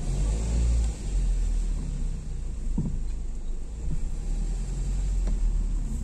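Low, steady rumble of a car moving slowly, heard from inside it, with a few soft knocks.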